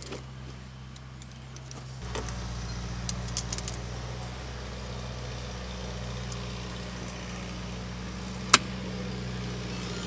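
Metal hand tools and battery cable clamps clinking while locking pliers clamp a cable onto a battery terminal, with one sharp metallic click about eight and a half seconds in. Under it runs the steady low hum of an idling engine, which gets louder about two seconds in.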